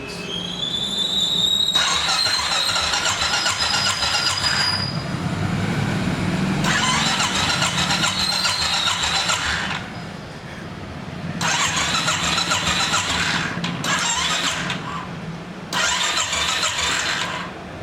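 Royal Enfield Thunderbird 350's single-cylinder engine being started: a rising starter whine at first, then about five loud bursts of a few seconds each, with short pauses between and a squeal in them.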